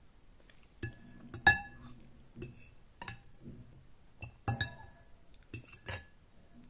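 Eating utensils clinking against a ringing glass or ceramic dish, about ten sharp irregular clinks, the loudest about a second and a half in.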